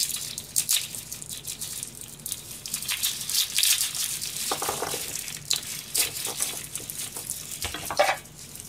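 Papery garlic skins crackling and rustling as cloves are peeled by hand, a steady string of short crinkly snaps.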